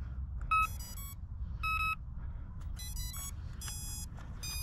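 Electronic beep tones from the YXZNRC F09-S RC helicopter as it powers up and initializes. Two single beeps come about a second apart, followed by quicker runs of several tones. Wind rumbles low on the microphone underneath.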